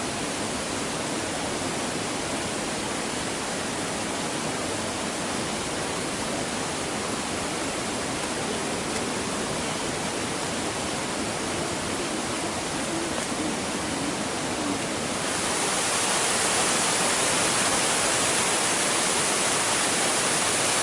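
Waterfall rushing: a steady wash of falling water that turns louder about fifteen seconds in.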